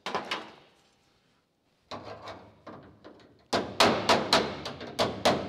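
Hand tool knocking on a car's steel roof panel: a brief clatter, then from about halfway a quick run of sharp metallic taps, roughly three to four a second.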